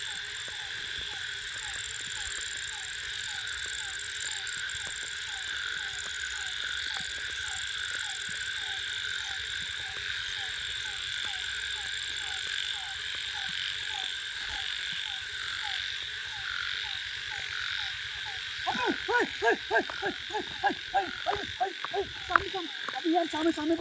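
Night chorus of frogs and insects: a steady high trilling with frog calls repeating about three a second. About three-quarters of the way in, much louder croaking starts in quick, uneven series.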